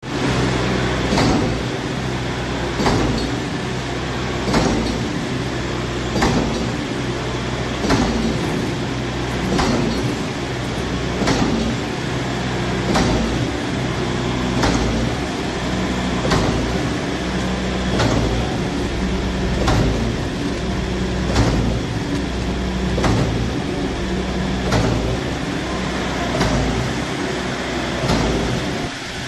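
Concrete mixer pump running on test: a steady engine drone with a sharp clack about every 1.7 seconds, the stroke changeover of the pumping cylinders.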